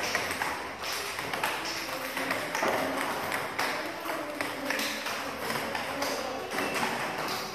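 Table tennis balls struck in quick succession during a multiball drill: a fast, even run of sharp clicks from balls hitting the paddle and bouncing on the table, with faint children's voices.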